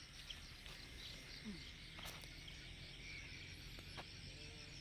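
Faint outdoor insect chorus: a steady, rapidly pulsing high chirring, with a few faint clicks.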